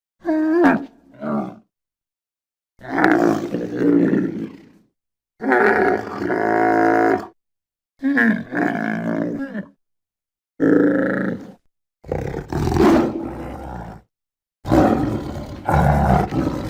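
Elephant seal bellows: a series of separate loud, deep calls, each a second or two long, with pitched, throaty tones. The calls are cut together with dead silence between them.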